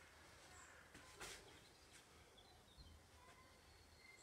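Near silence: faint outdoor background, with a few faint bird chirps about halfway through and a soft knock about a second in.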